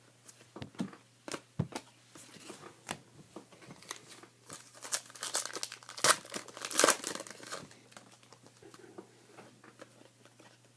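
Crinkling and tearing of a trading-card pack's foil wrapper, with scattered light clicks of cards being handled; the crinkling is thickest in the middle of the stretch.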